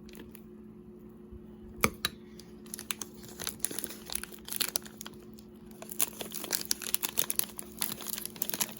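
Plastic piping bag crinkling and rustling as it is handled and filled, the crackle growing dense in the second half, with one sharp click about two seconds in. A steady low hum runs underneath.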